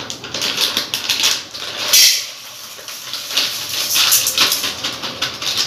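Plastic barley packet crinkling and crackling in the hands as it is opened, in quick runs of sharp crackles, loudest about two seconds in.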